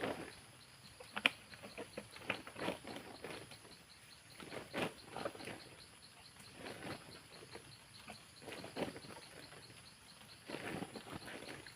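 Irregular rustles and knocks, sharpest about a second in, over a steady, evenly pulsing insect chirp.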